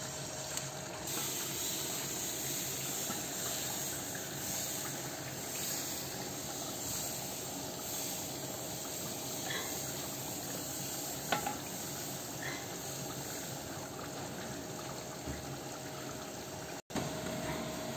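Egg-and-flour batter sizzling in thin lines on a hot, lightly oiled frying pan: a steady hiss.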